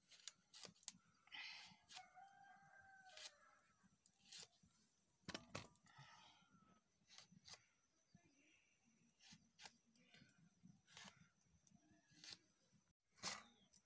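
Brinjal being sliced on a bonti, a fixed curved floor blade: faint, crisp cutting clicks scattered throughout. A rooster crows faintly about a second in, one call lasting about two seconds.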